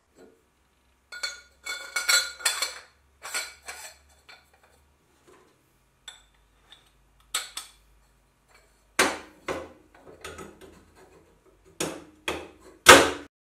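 Metal muffler parts clinking and scraping as a perforated inner baffle tube is slid into an outer metal tube. This is followed by a series of louder metal knocks as the assembly is set and pressed down on a metal workbench, the loudest just before the end.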